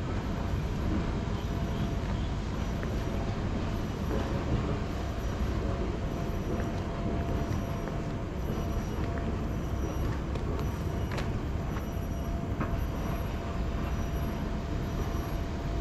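Steady outdoor background rumble, low and even, with a faint steady hum over it.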